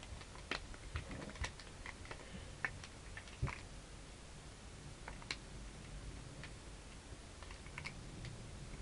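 Irregular small plastic clicks and clacks of a twisty puzzle being turned and folded by hand, several a second at first and sparser later.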